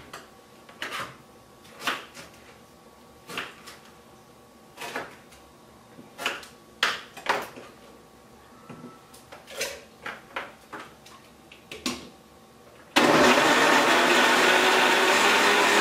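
A knife cutting pineapple on a cutting board in a dozen or so separate strokes, then about thirteen seconds in a countertop blender starts and runs steadily at full speed, the loudest sound, blending pineapple into spinach water.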